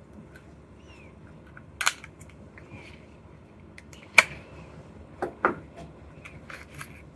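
Sharp snaps and clicks from plastic packaging being opened and handled: one about two seconds in, the loudest about four seconds in, and two more close together about a second later.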